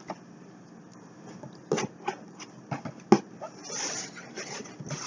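Items and packaging being handled: a few light knocks and taps, the loudest about three seconds in, and a short rustle a little before four seconds.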